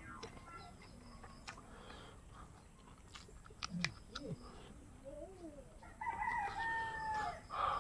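A rooster crows once, a long steady call about six seconds in that droops at its end, with shorter clucking calls a couple of seconds before it. Sharp mouth clicks of eating with the hands come through between the calls.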